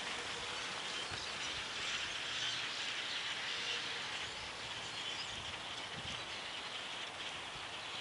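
A huge flock of thousands of small birds calling and flying overhead, their many calls merging into a steady, dense, high hiss that eases a little in the second half.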